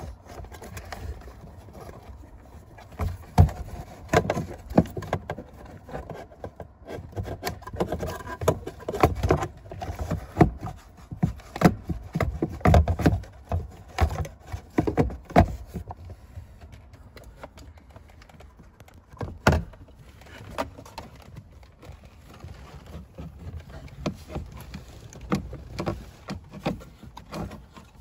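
Handling noise from work on car dashboard parts and wiring: irregular clicks, taps and knocks, thickest through the first half or so, with one sharper knock about two-thirds of the way through.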